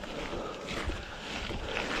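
Wind buffeting the microphone and rolling noise from a mountain bike ridden on a dirt road, a steady rumbling rush.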